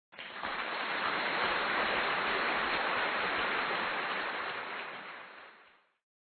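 A steady rushing hiss without pitch that starts suddenly and fades out over its last second.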